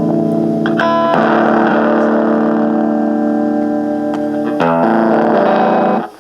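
Fender Stratocaster electric guitar strummed through a Honeytone mini amplifier's small speaker with the gain turned up, giving a distorted, overdriven chord sound. A new chord is struck about a second in and again a little before five seconds in, each left ringing, and the sound cuts off just before the end.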